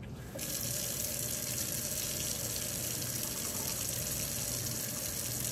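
Kitchen faucet turned on full, a steady hard stream of hot water rushing into the sink drain and garbage disposal, starting about half a second in. This is the minute-long hot-water flush that comes before a disposal cleaning tablet goes in.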